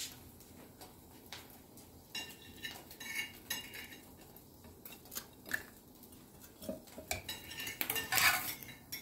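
Metal kitchen utensils clinking and scraping against a plate and pan in scattered short knocks, with a louder clatter near the end.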